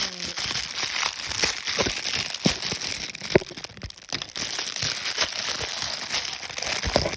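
Packaging crinkling and rustling as it is handled, with many small clicks and taps throughout.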